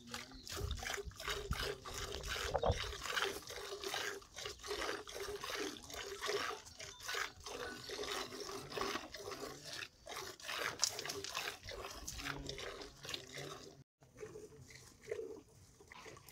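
Cow being milked by hand into a metal pail: quick repeated squirts of milk hitting the pail, with a brief break near the end.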